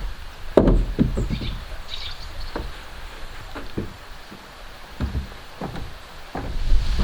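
Irregular knocks and thuds of wood being struck or handled, about a dozen uneven blows with no steady rhythm, the loudest a little over half a second in.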